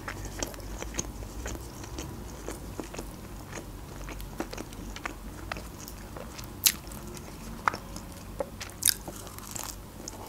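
A person chewing a mouthful of food, a string of small wet mouth clicks and crunches, with a few sharper crunches in the second half.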